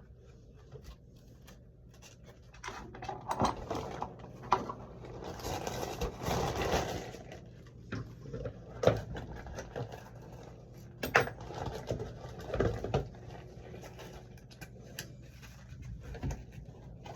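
Handling noises from working on a wall light switch and its screws and wires by hand: scattered small clicks, taps and scrapes, with a longer stretch of rustling and scraping near the middle.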